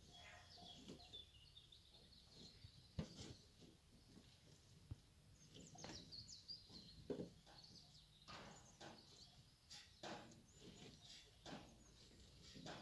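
Bull eating from a tub: faint, irregular crunches and knocks as it bites and chews its feed, with small birds chirping in the background.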